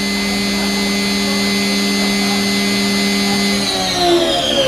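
2015 Haas EC400 horizontal machining center spindle spinning at 12,000 rpm with a steady high whine, then spinning down in falling pitch from about three and a half seconds in.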